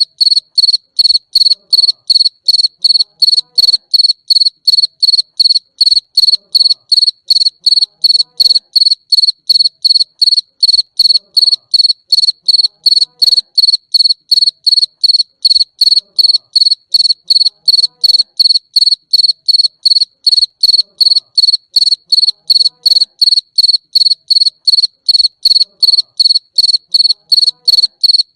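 A cricket chirping in a steady, even rhythm of about three high-pitched chirps a second.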